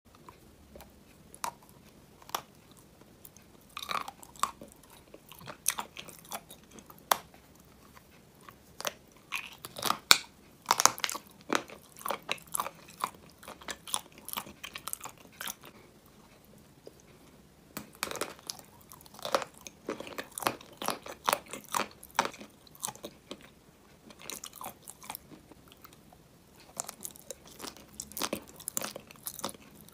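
Close-up bites and chewing of crisp brown tubes with a cream filling: sharp crunches snapping in quick clusters, with quieter pauses of chewing between them.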